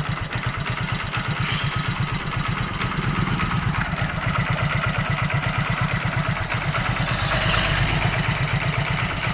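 Hero Glamour motorcycle's single-cylinder four-stroke engine idling with a steady, even exhaust beat. The front exhaust pipe has just been replaced and welded and no longer leaks, so there is no phut-phut from the exhaust.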